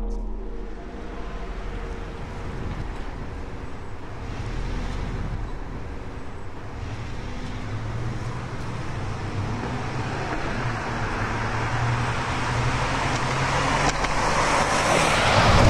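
A steady low rumble and hiss with a faint low hum, growing gradually louder and brighter and swelling into a loud rush near the end.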